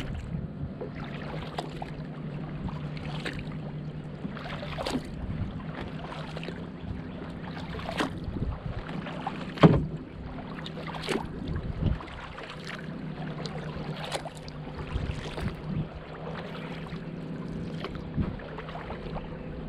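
Kayak paddle strokes: the blades dip and splash into calm lake water in a steady rhythm, about one stroke every second or so, with the loudest splash about halfway through. A steady low hum runs underneath.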